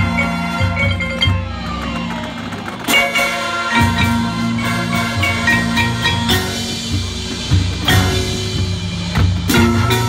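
High school marching band playing: sustained brass chords under marimba and vibraphone lines from the front ensemble, with sharp accented percussion hits about 3, 6, 8 and 9½ seconds in.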